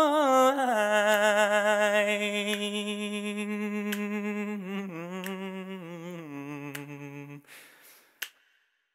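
An unaccompanied male voice hums a long, wordless note with vibrato. The note steps down in pitch three times and stops near the end, followed by a soft breath and a faint click.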